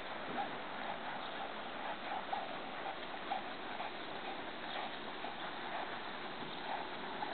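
American Quarter Horse mare's hooves striking a dirt arena under a rider, a light beat about every half second over a steady hiss.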